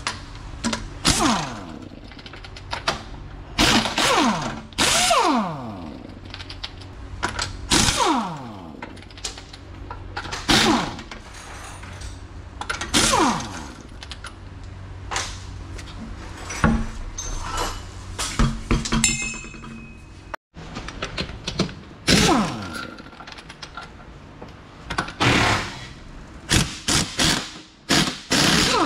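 Impact wrench loosening a car's wheel lug bolts: about a dozen short bursts of rapid hammering, many followed by the motor winding down with a falling whine.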